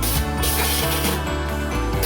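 Background music with a rough hissing, rubbing noise over it that comes and goes in short strokes.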